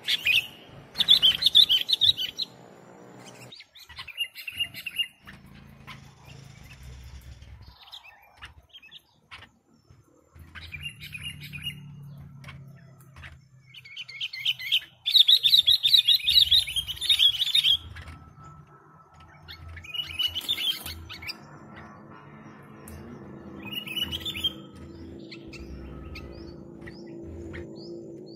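Sooty-headed bulbul (kutilang) in full song: about six bursts of quick, bubbly warbled phrases a few seconds apart, the longest and loudest about halfway through, over a low background rumble.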